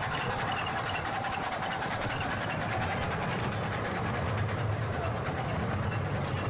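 A railway locomotive running steadily, with a low hum.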